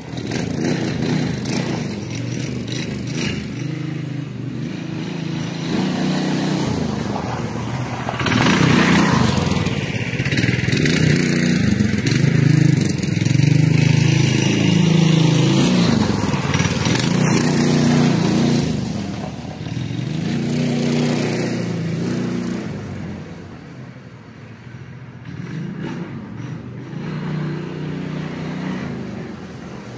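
Homemade minibike powered by a walk-behind-tractor engine, riding out of sight. The engine note goes up and down as it revs and changes speed. It grows louder about eight seconds in, fades after about twenty seconds and rises again near the end as the bike comes back.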